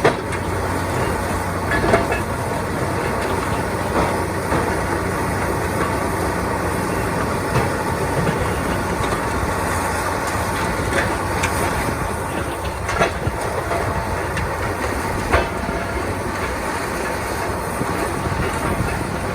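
Backhoe excavator running steadily on a demolition site while it works, with a few sharp knocks and cracks of debris being crushed.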